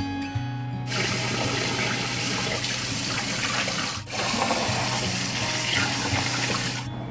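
Water running from a kitchen tap into a sink, starting about a second in, breaking off very briefly near the middle and stopping shortly before the end, over background music.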